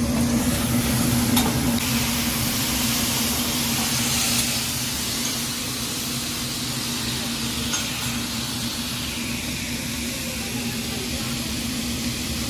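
Vegetables and noodles sizzling on a hot hibachi flat-top griddle, the hiss swelling a few seconds in as a cloud of steam rises, then settling to a steadier sizzle. A few light clicks of the metal spatula sound over a steady low hum.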